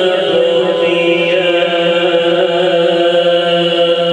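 Male qari reciting the Quran (tilawat) in the melodic Arabic style, holding one long steady note, amplified through a PA microphone.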